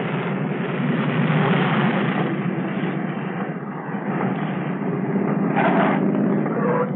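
Twin Pratt & Whitney R-2000 radial piston engines and propellers of a de Havilland Canada DHC-4 Caribou running as the aircraft rolls along the runway, a steady engine drone. A brief higher note cuts in about five and a half seconds in.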